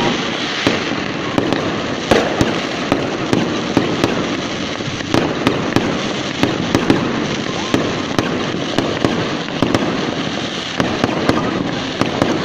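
Aerial fireworks going off in a rapid, irregular run of sharp bangs, several a second, over a continuous noisy background.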